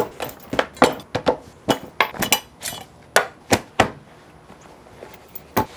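A leather knife roll unrolled across a wooden butcher block, the knives inside knocking and clinking in a quick run of sharp clicks. The clicks stop about four seconds in, with one more near the end.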